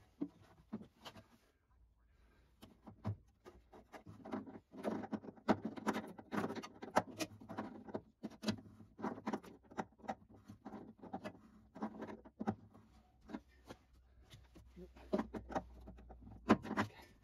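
Irregular clicks, knocks and rattles of a hand tool and metal hardware as a heavy-duty battery disconnect switch is fitted and tightened into the steel battery box of a 1993 HMMWV M998, busiest in the middle and again near the end.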